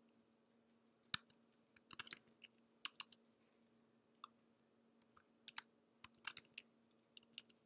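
Typing on a computer keyboard: single keystroke clicks in short, irregular runs with pauses between them, over a faint steady hum.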